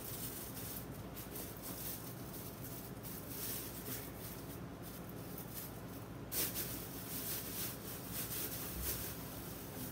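Thin plastic grocery bag crinkling and rustling as it is pushed down between a helmet's liner and shell with a stiff plastic burnisher, in scattered soft scrapes and rustles with a louder crackle about six seconds in.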